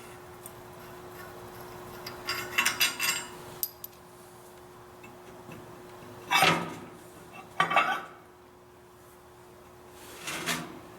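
Steel hitch pin clinking and scraping as it is handled in the freshly bored holes of a planter hitch: a quick rattle of clinks, then two louder metal-on-metal knocks and a softer one near the end. A steady low hum runs underneath.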